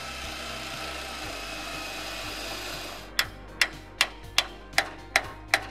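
Cordless drill running a bit through the sheet-steel spot welds of a BMW E30 chassis leg, drilling them out to free the mounting plate. About three seconds in the drilling gives way to seven sharp metallic clicks, evenly spaced at about two and a half a second, as a hand tool is worked against the metal.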